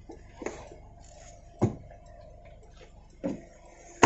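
Four short knocks and thumps from someone climbing out of a car, the loudest near the end, over the faint steady hum of the Toyota Corolla's engine idling with the air-conditioning off.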